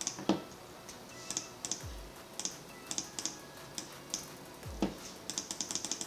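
Computer keyboard keys clicking as shortcuts are pressed: scattered single presses, then a quick run of about a dozen clicks near the end. Two soft low thumps fall in the middle.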